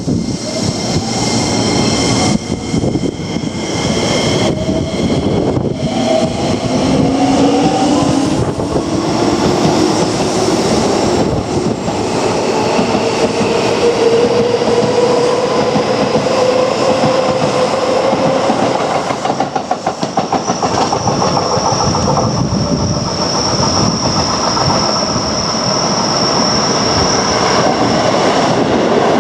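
Keio Line electric commuter train running, its traction motor whine rising in pitch as it gathers speed. About twenty seconds in, its wheels clack in a quick even rhythm over rail joints.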